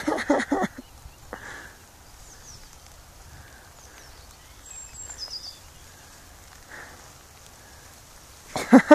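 Quiet open-air ambience with faint, high bird chirps. A fast run of short pitched calls, about seven a second, sounds at the very start and again near the end; they are the loudest thing here, and their source is not clear.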